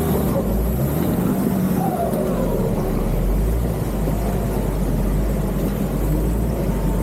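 Nissan Patrol Y61 off-roader's engine running steadily, a deep, even engine noise.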